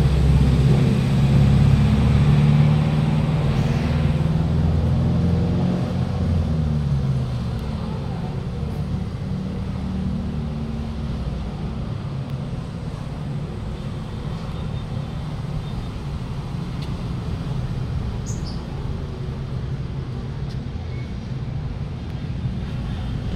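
Road traffic rumble: a vehicle engine running close by for the first several seconds, fading into a steadier low traffic noise.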